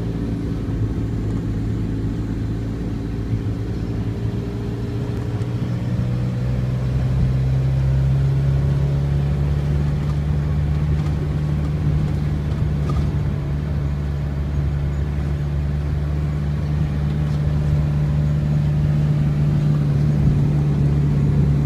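Car engine and road noise heard from inside the cabin while driving. The engine note rises as the car gathers speed over the first several seconds, then holds steady at cruising speed.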